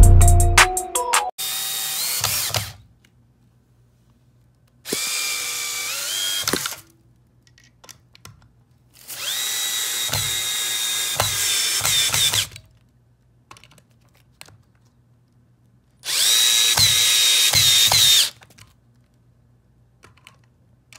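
Cordless impact drill in screw mode, low speed and maximum torque, driving 4-inch screws into pine in four separate bursts of motor whine, its pitch sagging toward the end of some bursts as it strains to sink the screw. A short musical jingle ends in the first second.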